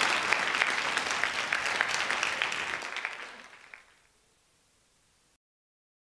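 Audience applause, many hands clapping, dying away over about four seconds.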